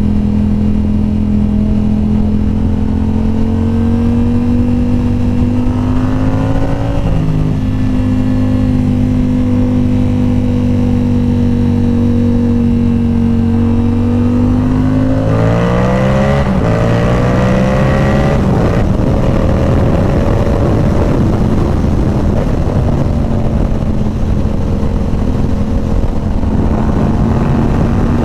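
Inline-four sport motorcycle engine running at steady highway revs, then accelerating hard about halfway through, the revs climbing in quick steps as it shifts up. It then settles into steady high-speed running under a loud rushing noise.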